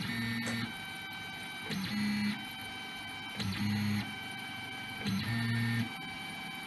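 Stepper motors of a MAESTRO delta 3D printer whining during its auto bed-leveling routine. Four short pitched moves come about every 1.7 s over a steady high whine from the motors holding between moves.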